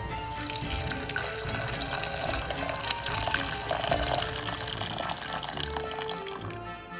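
Boiling water poured in a steady stream into a stainless steel saucepan over frozen king prawns, splashing and filling the pan, with background music. The pouring eases off near the end.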